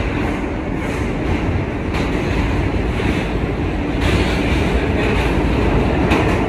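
Inside a 2023 Kawasaki R211A subway car running through a tunnel: the steady rumble of wheels on the rails and the car's running noise, heaviest in the low end.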